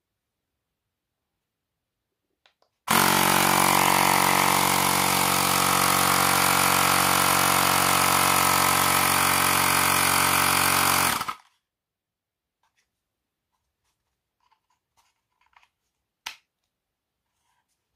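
Xiaomi Portable Electric Air Compressor 1S running with nothing connected to its hose, for a noise check. Its pump runs loud and steady, starting abruptly about three seconds in and cutting off after about eight seconds. A few faint clicks of handling follow.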